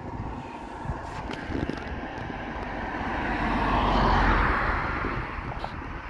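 A vehicle passing on the road, its rushing noise swelling to a peak about four seconds in and then fading away, with wind buffeting the microphone.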